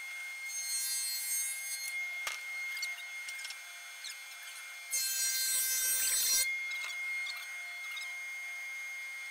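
Delta RC51 20-inch four-knife thickness planer running with a steady high whine, and twice cutting wood in stretches of about a second and a half each, about half a second in and again about five seconds in. A single sharp knock comes a little after two seconds.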